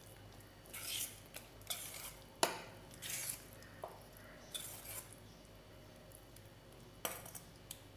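Steel spoon stirring thick, wet semolina batter in a stainless steel bowl: a handful of separate scraping strokes, with one sharp clink of spoon on bowl about two and a half seconds in.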